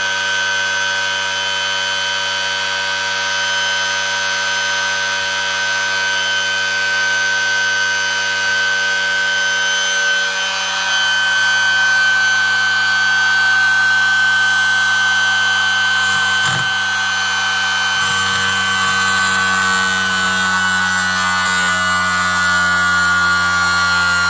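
Home-built pulse motor spinning unloaded at very high speed, around 25,000 RPM, with a steady high whine. The pitch sinks slightly over the last few seconds, and there is one short tick about two-thirds of the way through.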